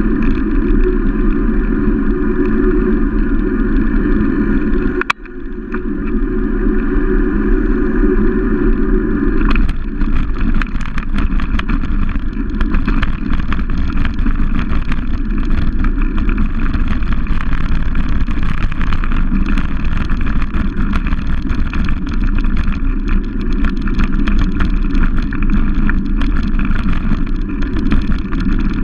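Motorcycle engine running at cruising speed, with wind on the microphone. A sharp click about five seconds in is followed by a brief dip in the sound; from about ten seconds in the sound turns rougher, with rapid crackling and rattling as the road surface becomes broken and patched.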